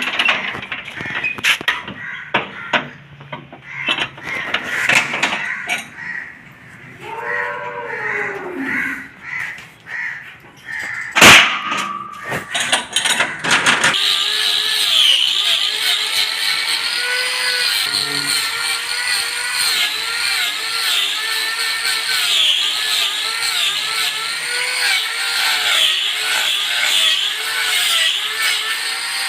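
Irregular clicks and knocks with one loud sharp crack about eleven seconds in, then a power grinder starts and runs steadily for the rest of the time, its pitch wavering as it cuts into a cow's hoof during trimming.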